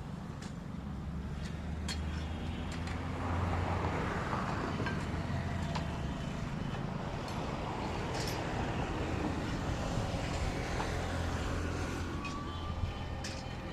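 A steady low engine drone with a few sharp clicks over it, and a swell of noise a few seconds in.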